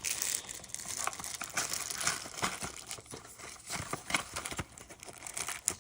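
Packaging crinkling and rustling as parts of a smart door lock kit are handled and unwrapped, with irregular small clicks and crackles.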